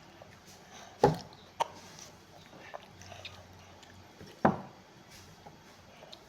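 Close-up eating sounds while eating chicken: a few sharp bites or crunches, the loudest about a second in and again past four seconds, with softer mouth clicks between.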